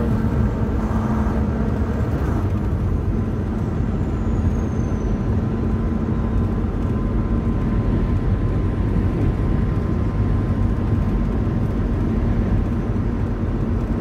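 Steady engine and road noise of a Volvo semi truck cruising, heard from inside the cab, with a constant low hum.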